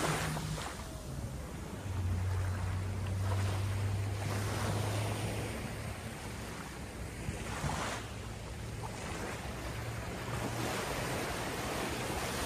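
Small sea waves washing in over a pebble shore, the surf swelling about two seconds in and again around eight seconds, with wind buffeting the microphone and a faint low hum underneath.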